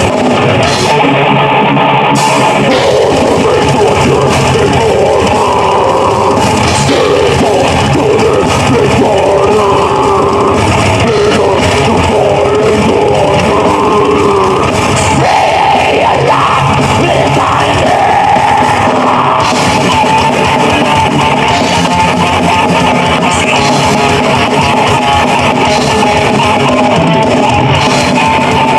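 Metal band playing live: guitars and drum kit, loud and continuous.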